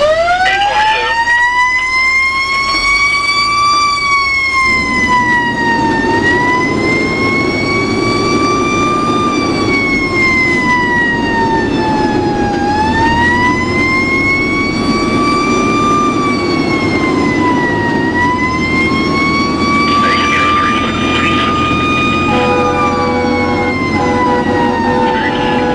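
Fire engine siren starting up with a rising wind-up over about four seconds, then wailing slowly up and down several times as the truck drives on a call, with the truck's engine running underneath. Near the end the siren pitch falls steadily while a second, steady tone sounds alongside it.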